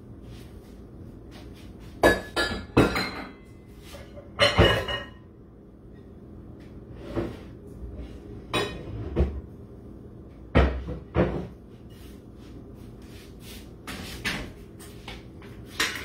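Kitchen cupboard doors and stacked cookware knocking and clanking as someone rummages through the cabinets, about ten sharp clanks spread out with pauses between them, over a steady low hum.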